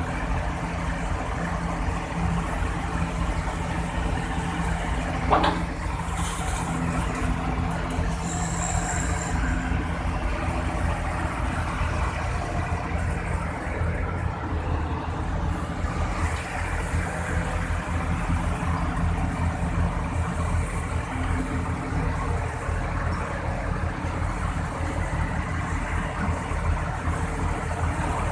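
Sumitomo SH210 hydraulic excavator's diesel engine running steadily as it digs, with a single short, sharp knock about five seconds in.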